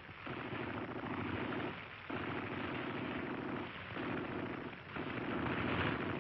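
Automatic gunfire in four long bursts, each one to one and a half seconds, separated by short breaks.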